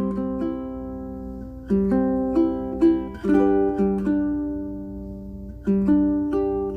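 Solo Pono PCMP prototype ukulele with aNueNue Green Planet strings and a low-G string, played unaccompanied. It gives plucked chords and single melody notes that ring out and fade, with a gap of a couple of seconds before the picking picks up again near the end.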